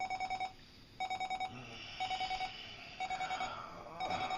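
Digital clock radio alarm beeping: quick bursts of about six rapid beeps, one burst each second, five times over.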